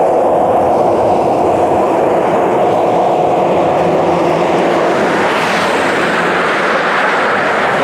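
Heavy road-construction machinery running with a steady, loud mechanical drone.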